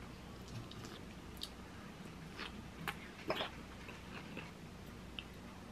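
Quiet chewing with scattered small clicks of a fork against the plate, two of them louder about three seconds in.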